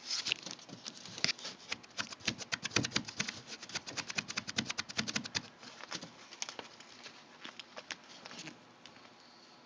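Puppies making a rapid run of light clicks and pattering, which thins out to scattered clicks after about five seconds and dies away near the end.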